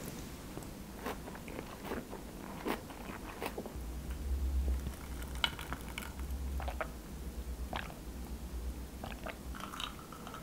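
A person chewing a mouthful of salmon nigiri sushi, with scattered small clicks.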